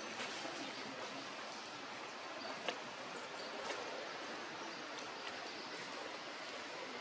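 Outdoor ambience: a steady hiss with a few short, faint clicks, the sharpest a little under three seconds in.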